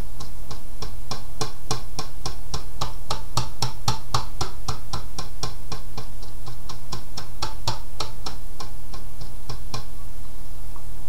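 The dauber tip of a bottle of liquid scuff cover is dabbed again and again on a metal phonograph grill. It makes a steady run of light taps, about four a second, and each dab leaves little bubbles of stain that build up a faux wood grain.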